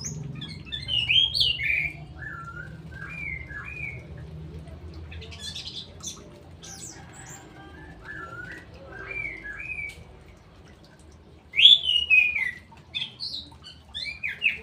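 Straw-headed bulbul (cucak rowo) singing in bursts of liquid, slurred whistled phrases that glide up and down. Phrases come about a second in, around three seconds and around nine seconds, with the loudest burst near the end. Thin higher chirps are mixed in.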